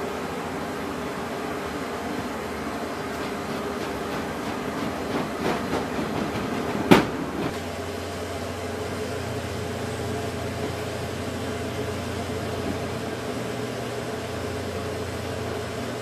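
Cargo pallet pushed over the roller floor of a C-17's cargo bay against a steady machinery hum, with a stretch of rattling clatter and one sharp bang about seven seconds in. A lower steady hum joins just after the bang.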